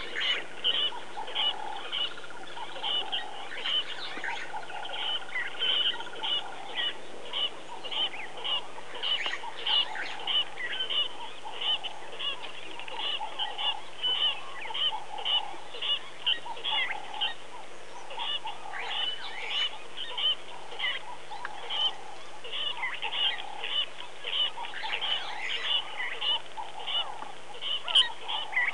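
Bird calls repeating steadily, two or three short high notes a second, with other calls mixed in.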